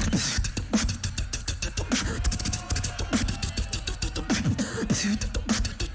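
Beatboxing: a fast, dense rhythm of mouth-made kick and snare hits and clicks over a steady bass line, with short falling pitched vocal sweeps. It kicks in right at the start.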